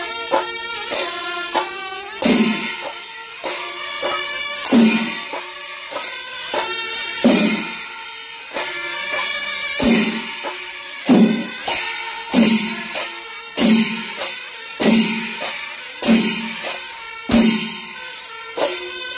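Kerala chenda melam: chenda drums pounded in a steady cycle, with a heavy accented stroke about every second and a quarter, over continuous clashing of ilathalam cymbals and some held tones.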